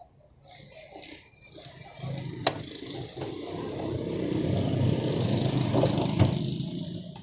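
A motor vehicle passing on the street: engine and road noise swell over several seconds and fade near the end. Under it is the sizzle of potato chips deep-frying in a steel pot of oil. There is one sharp click about two and a half seconds in.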